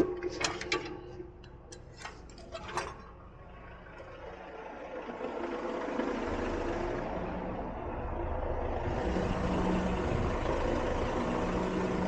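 A few light metal clicks and knocks as the crane's hook is handled, then a truck-mounted Effer knuckle-boom crane running, its engine-driven hydraulics working as the boom moves. The running sound comes in about four seconds in and grows louder in two steps.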